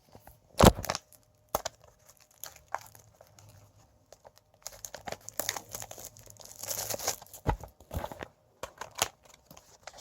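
Wrapping on a card promo pack being torn open and crinkled, with a sharp knock about a second in and a dense stretch of crinkling in the second half.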